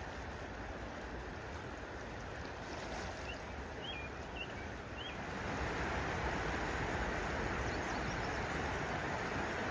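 Steady rushing outdoor noise that grows louder about halfway through, with four short high chirps from a small bird a little before that.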